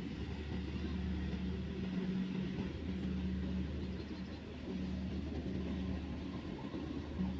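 Kubota combine harvester running in a rice paddy, its engine a steady low drone over the noise of the machine working.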